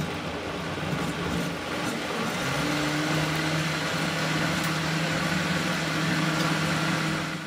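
Vitamix blender motor running at speed, puréeing a thick sauce of roasted red pepper, almonds and tomatoes. The hum settles to a steady pitch about two and a half seconds in, and the motor stops at the end.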